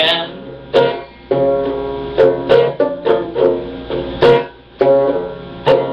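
A plucked string instrument played on its own: about ten struck chords at an uneven pace, each ringing on between strokes.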